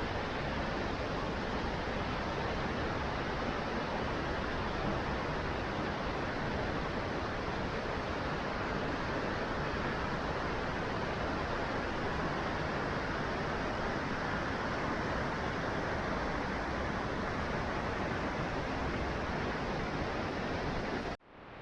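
Steady, unbroken rush of falling water from the Curug Cimahi waterfall. It cuts off abruptly just before the end.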